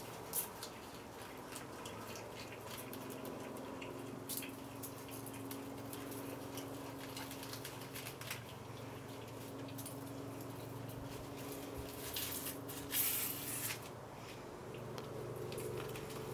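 Scattered small crunching and rustling clicks of an ear of corn in its husk being chewed and tugged between a capybara and a squirrel, with one louder rustle under a second long about 13 seconds in. A steady low hum runs underneath.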